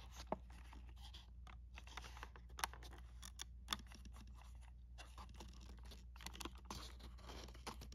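Faint scratching, rustling and light clicks of fingers handling a small cardboard box and its clear plastic insert as the packaging is worked open.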